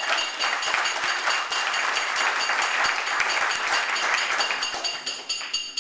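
Wedding guests applauding, a dense patter of many hands clapping that dies away near the end.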